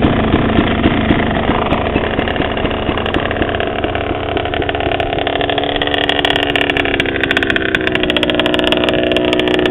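Dirt bike engine idling steadily, its note shifting slightly in pitch about seven seconds in.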